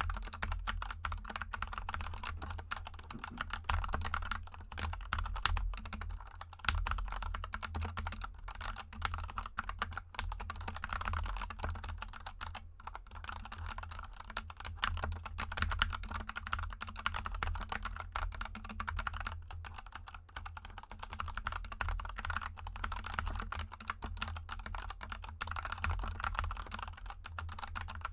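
Continuous fast typing on a GK64 mechanical keyboard with lubed Gateron Yellow linear switches and XDA keycaps: a dense run of key clicks and clacks. There is a steady low hum underneath.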